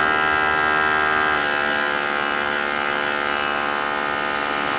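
Small airbrush compressor running with a steady, even motor hum, its pitch settling slightly lower about a second and a half in.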